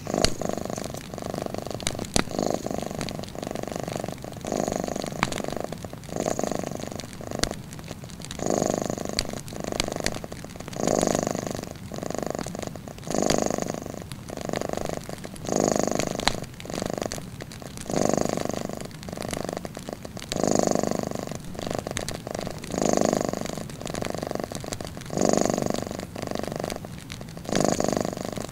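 Domestic cat purring in long swells that rise and fall with each breath, about every two and a half seconds, with a few sharp clicks scattered through.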